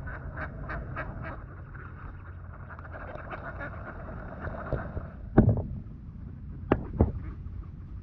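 Swamphens giving short, repeated calls, with a steady low wind rumble on the microphone; near the middle and again about a second later come three loud, sharp knocks close to the microphone.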